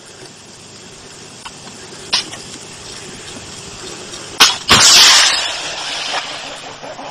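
HJ-8 (Baktar-Shikan) anti-tank guided missile fired from its tripod launcher: a sharp crack about four and a half seconds in, then the loud launch blast and rush of the missile motor, fading over about a second and a half. Before it there is a hiss that slowly grows louder, with a small click about two seconds in.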